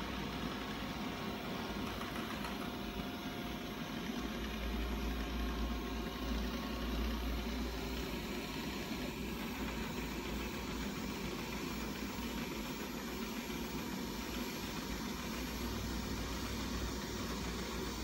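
First-generation Xiaomi Mi Robot Vacuum running with a steady mechanical whir as it drives back onto its charging dock.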